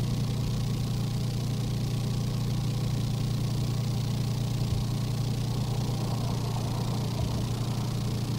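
Car engine running, heard from inside the cabin as a steady low drone.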